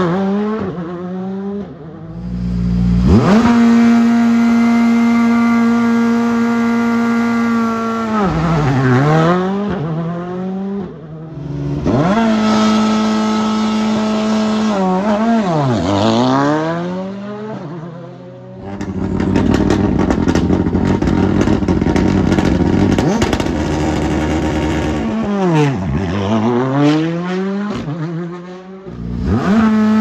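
Rally2 cars' 1.6-litre turbocharged four-cylinder engines at a stage start: revs held steady on the line for several seconds at a time, dropping and climbing again as the cars move off and the next one pulls up. In the middle comes a harsher stretch full of rapid pops.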